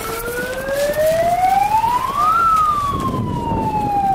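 Siren wailing: one slow rise in pitch over about two seconds, then a longer, slower fall.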